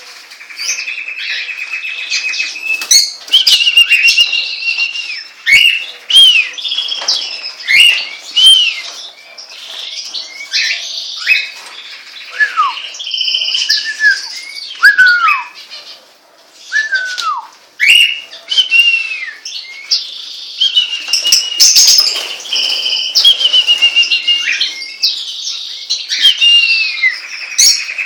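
Pet birds calling together, a busy, continuous mix of chirps and whistles, many of them short notes sliding downward in pitch.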